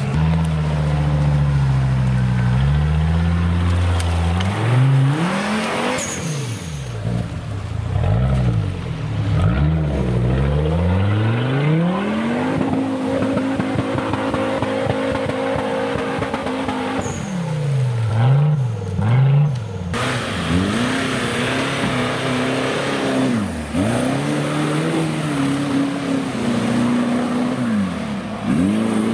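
Off-road competition buggy's engine revving hard under load, its pitch swinging up and down again and again as the tyres spin and claw through mud. It is held high for several seconds in the middle, then dips and rises a few more times.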